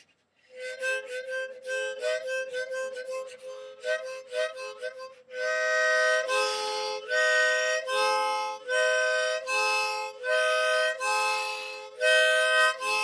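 A harmonica played as a little tune: first a quick run of short, quieter notes, then from about five seconds in louder sustained chords alternating in a steady rhythm.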